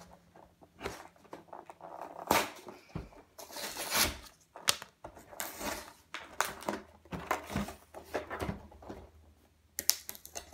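A stiff cardboard collector's box being worked open by hand on a wooden table: irregular scrapes, rustles and knocks of card against card and against the tabletop, with a few louder knocks.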